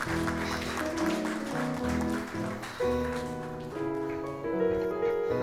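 Background music: pitched instrumental notes that change every half second or so, with plucked-guitar-like tones.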